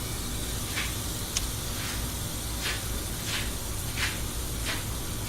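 Bath bomb fizzing in a tub of water: a steady hiss with short, brighter swishes every half second to a second, over the low hum of a room fan.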